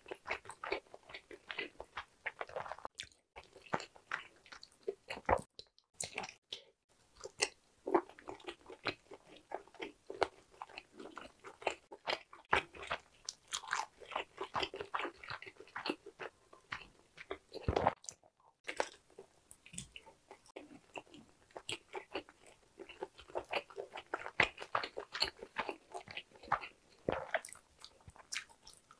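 Close-miked biting and chewing of spicy stir-fried sundae (Korean blood sausage): steady wet mouth sounds, smacks and small clicks, with a few short breaks.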